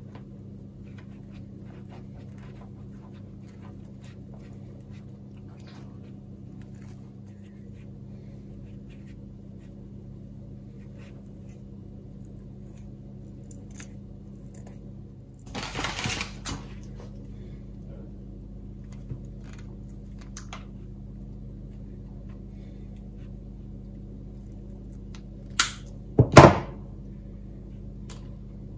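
Faint scattered clicks and rustles of coax braid being picked apart by hand, over a steady low hum. A short louder burst comes about midway, and a brief sharp knock, the loudest sound, comes near the end.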